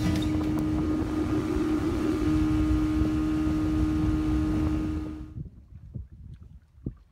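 Small boat's outboard motor running steadily under way, a constant hum with wind on the microphone. It cuts off abruptly about five seconds in, leaving only faint wind.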